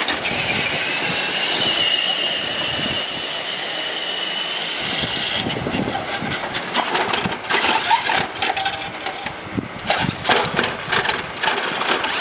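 Small electric motor of a remote control truck whining steadily with a high tone for about five seconds, then giving way to irregular knocks and rattles for the rest of the time.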